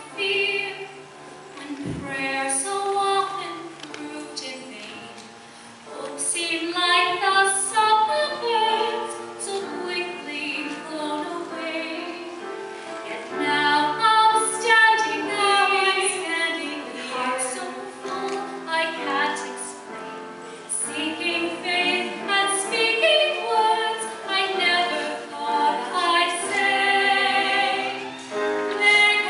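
Female choir singing a slow ballad in harmony, sustained notes with vibrato, softer for the first few seconds and then swelling to fuller, louder passages.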